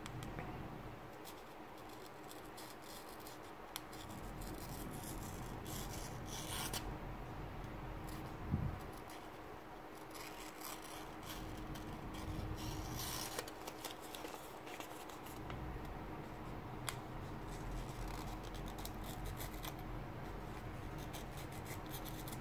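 Daiso 9mm 60-degree snap-off cutter blade, held bare in the fingers, slicing through a sheet of paper: repeated short scratchy cutting strokes with paper rustling. The blade cuts unevenly, dragging along its middle section while the tip cuts fairly well.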